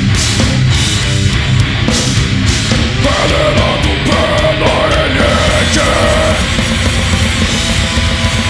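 Live heavy metal band playing loud and dense: drum kit with crashing cymbals, distorted guitars and bass, with a harsh shouted vocal line held through the middle.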